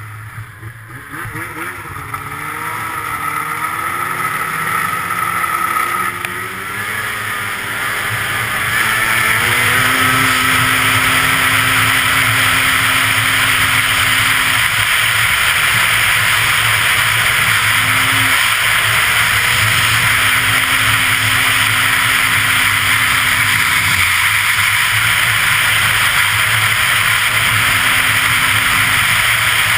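Arctic Cat CFR 800 snowmobile's two-stroke engine revving, its pitch wavering and climbing over the first several seconds, then running hard at speed with a loud steady rush. The engine note holds and then drops back several times.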